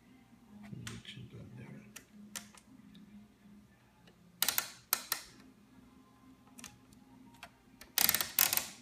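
Tektronix 2235 oscilloscope front-panel switches and knobs being worked: scattered single clicks, with two louder clusters of rapid clicks, like a rotary switch turned through its detents, about four and a half and eight seconds in.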